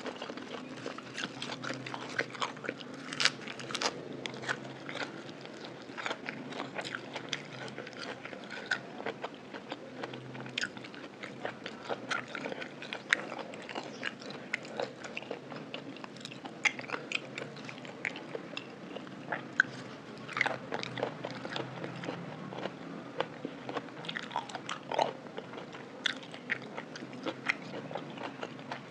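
Close-miked eating: crisp crunching bites and chewing of raw shrimp, lime slices and lettuce leaves, with many sharp crunches following one another throughout.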